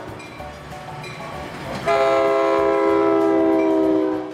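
Toy train running on plastic track, then its horn sounds: a loud, steady, one-pitch toot with many overtones, starting about two seconds in and held for about two seconds.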